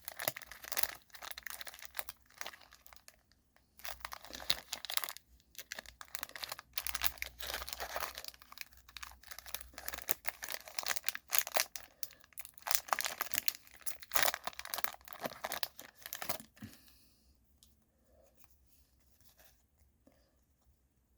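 Plastic trading card pack wrapper being torn open and crinkled in the hands: dense crackling and tearing that stops about 16 seconds in.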